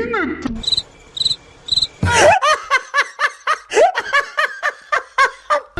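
Three short cricket chirps, the stock 'awkward silence' sound effect, followed about two seconds in by a rapid, pulsing laugh sound effect of about four bursts a second.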